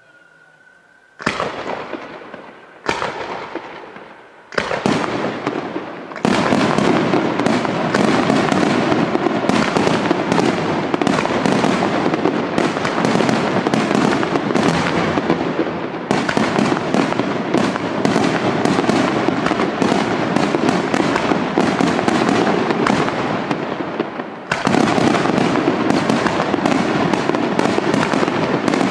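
Aerial firework shells bursting. After about a second of quiet come three separate loud bangs a second or two apart, each trailing off. From about six seconds in they become a dense, unbroken barrage of rapid bangs, with a brief dip near the end.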